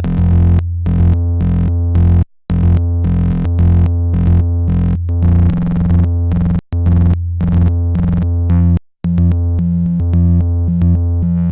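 Eurorack modular synthesizer voice run through a Noise of Antimatter Subshaper subharmonic generator and waveshaper, self-patched with its aux output feeding the channel D CV input. A low, buzzy bass tone steps between a few pitches in a rhythmic pattern and cuts out briefly three times.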